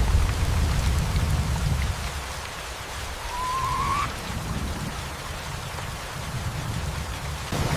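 Steady rain falling over a low continuous rumble. About three seconds in, a single short whistled note rises in pitch for under a second.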